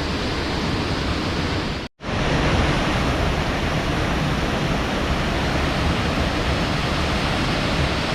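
Steady rush of flowing river water, breaking off for an instant about two seconds in.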